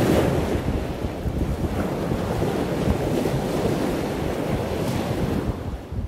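Wind buffeting the microphone over ocean surf breaking on a beach, a gust loudest about the first second, easing off near the end.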